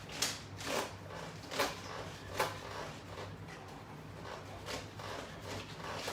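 Short swishing, rubbing noises from body and resistance-band movement during an exercise: four sharp ones in the first two and a half seconds, then weaker ones, over a steady low electrical hum.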